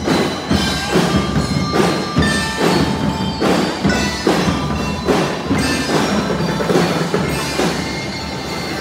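Drum and lyre corps playing: bell lyres ring a melody over marching drums beating steadily, about two strikes a second.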